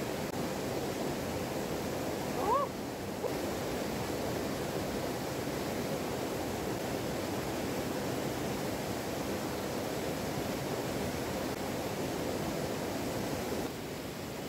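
Small waterfall pouring into a cold Alpine river pool: a steady rush of water. A brief high rising cry sounds about two and a half seconds in, and the water noise drops a little near the end.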